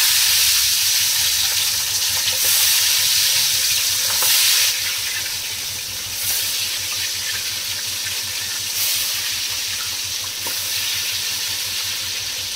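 Large pieces of katla fish frying in hot mustard oil in a kadai: a loud, steady sizzle that eases a little about five seconds in.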